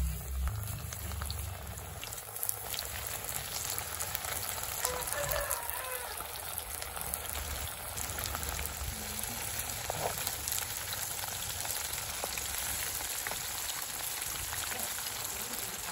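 Masala-coated fish pieces deep-frying in hot oil: a steady crackling sizzle with many small pops as the pieces are lowered in.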